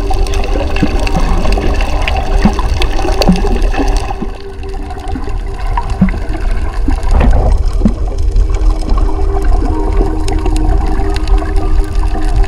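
Water rushing and splashing over a steady low rumble.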